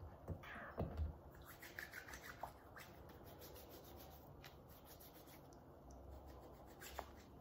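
Hands rubbing together to spread hand sanitizer: faint, soft rubbing and scratching strokes, after a press of the pump bottle in the first second.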